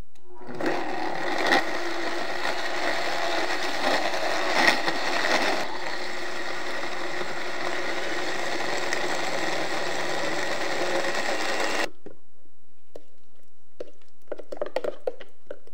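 Vitamix blender motor running at high speed, blending frozen pineapple chunks with coconut cream. It is uneven and rattly for the first few seconds as the frozen pieces break up, then runs steadier, and cuts off suddenly after about eleven seconds. A few light knocks follow as the lid is lifted off.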